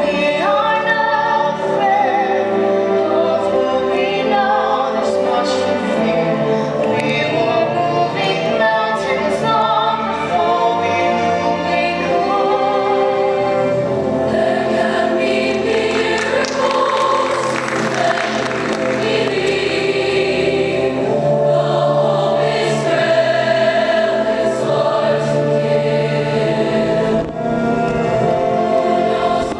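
A choir singing, many voices holding sustained, wavering notes in harmony.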